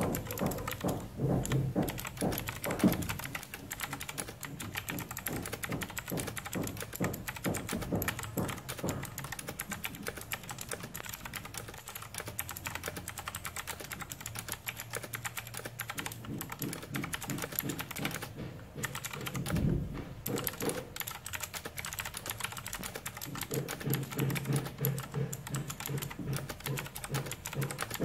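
Fast typing on an Aula Wings of Liberty mechanical keyboard with clicky Gateron Blue switches: a dense, irregular run of key clicks, not very loud, with a short pause about two-thirds of the way through.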